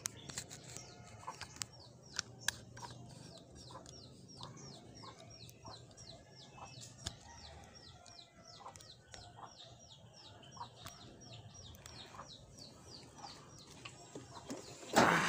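Chickens calling: a long, even run of small high peeps, about three a second, with softer clucking mixed in. In the last half second a sudden loud burst as the Honda Mio i 125 scooter's engine is started.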